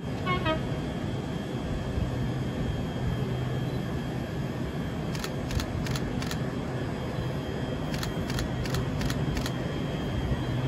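Steady low hum of trains at a station: an electric multiple unit standing at the platform, with a diesel-hauled freight train approaching from the distance. A short falling series of notes comes right at the start, and light clicks come in two short runs, about halfway through and again near the end.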